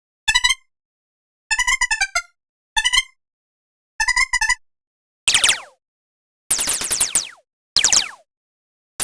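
Ableton Meld software synthesizer presets: short clusters of rapid pitched blips separated by dead silence, then, about five seconds in, a run of quick downward-sweeping zaps.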